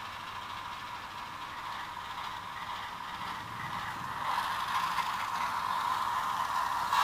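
Bachmann HO scale RS3 model diesel locomotive running along the track: a steady mechanical whirr and clatter of its motor, gears and wheels, getting louder from about four seconds in as it comes nearer, with a brief louder clatter at the very end.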